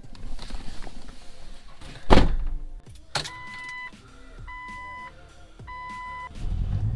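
Driver's door of a 1998 Jeep Cherokee XJ shutting with a thud about two seconds in, then a click of the key, and the dashboard warning chime beeping three times with the ignition on. Near the end the engine starts and settles into a steady run.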